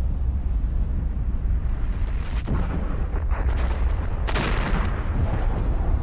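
Volcanic eruption: a continuous deep rumble with sudden explosive blasts, a short one about two and a half seconds in and a louder, longer one a little past four seconds.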